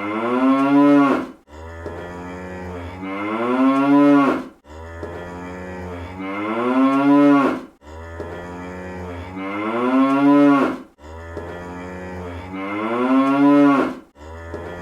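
Cartoon cow moo sound effect, looped and repeated about every three seconds. Each moo starts low and buzzy, then rises in pitch and swells before breaking off abruptly.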